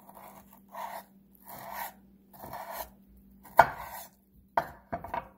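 Kitchen knife cutting through tomato on a wooden cutting board, in separate strokes roughly once a second. A sharp knock of the blade on the board comes a little past halfway, with a few more knocks near the end. A faint steady hum runs underneath.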